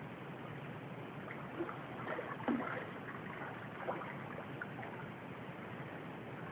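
Steady outdoor ambience, a soft even hiss, with a few faint knocks and clicks about two seconds in and once more near four seconds.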